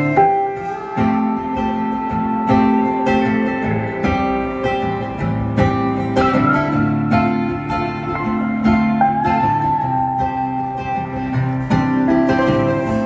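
Live band playing an instrumental passage: acoustic guitar strumming over a drum beat, with a held lead melody line that glides up in pitch about six and again about nine seconds in.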